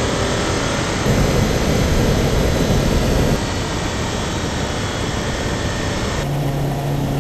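Audi car's engine and road and wind noise heard from inside the cabin while it is driven hard around a racetrack. The sound gets louder and rougher for a couple of seconds starting about a second in, then settles. Near the end a steady low drone comes in.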